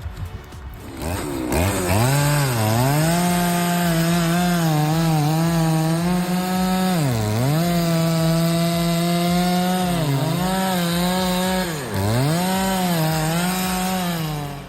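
Echo CS590 chainsaw's 59.8 cc two-stroke engine starts running hard about a second and a half in, cutting through a massive hard tree trunk. It holds a high steady pitch and dips briefly several times as the chain bogs down in the wood.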